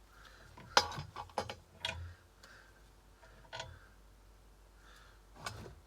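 A handful of sharp clicks and light knocks at irregular intervals as the parts of a belt sander are handled during disassembly, the loudest a little under a second in.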